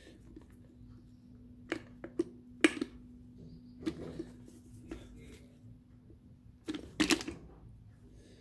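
Small clicks and knocks of a metal diesel fuel filter canister and its plastic housing being handled and fitted by hand, a handful of sharp taps with the loudest about two and a half seconds in and again about seven seconds in, over a steady low hum.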